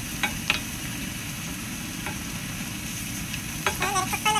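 A wooden spoon stirring chicken adobo in a cast-iron skillet, knocking and scraping against the pan, over a steady sizzle from the chicken cooking in its soy-vinegar sauce. A few sharper scrapes and knocks come near the end.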